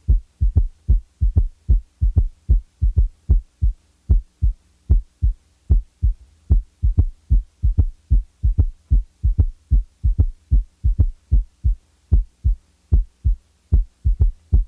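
Auscultated heart sounds with a third heart sound (S3, ventricular gallop): a low thud just after the second sound in each cycle gives a three-beat galloping rhythm, and the S3 drops out of some cycles. A faint steady hum runs underneath. The S3 comes from rapid ventricular filling in early diastole; it is normal in children and young adults, but over 40 it usually reflects a dilated, poorly contracting ventricle.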